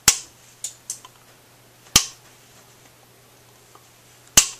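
Small wire cutters snipping off the excess leads of freshly soldered components on a circuit board, each cut a sharp snap. Loud snips come just after the start, about two seconds in and near the end, with a couple of fainter clicks between.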